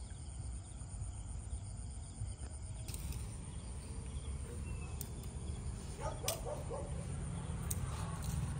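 Crickets chirring steadily, with a few sharp slaps and rustles from about three seconds in as a freshly landed fish flops on the grass, over a steady low rumble.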